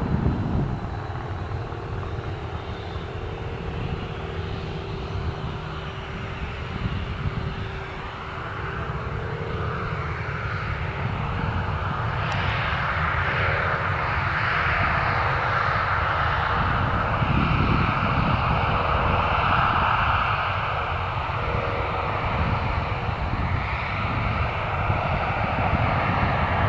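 Boeing 737-800's twin CFM56-7B turbofan engines at taxi power: a steady rumble and hiss with a droning whine. It grows louder and hissier about halfway through as the jet turns past.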